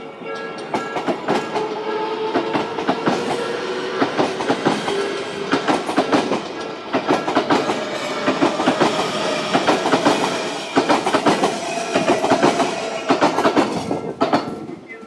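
An Odakyu Line commuter train passing over the level crossing, its wheels clicking rapidly and continuously over the rail joints for about fourteen seconds before the sound drops away near the end.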